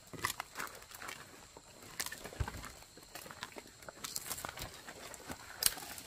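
Twigs and dry brush snapping and leaves rustling in irregular short clicks as a person pushes on foot through dense forest undergrowth.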